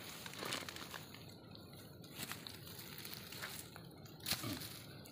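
Dry leaf litter and grass rustling and crackling as a hand reaches in and picks up a freshly beheaded eel, with a louder crackle about four seconds in.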